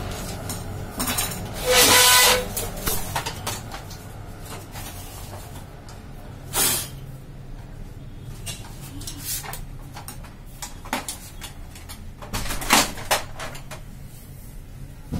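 Plastic panels and parts of a Xerox WorkCentre copier being handled: a loud scraping clatter about two seconds in, a single knock around six and a half seconds, and a few clunks near the end as the hinged side door is moved, over a low steady hum.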